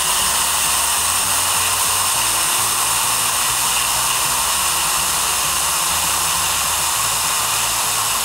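Steam hissing steadily out of the valve of a Fagor Futuro stovetop pressure cooker on quick release: the pot is venting its pressure so that the self-locking lid can be opened.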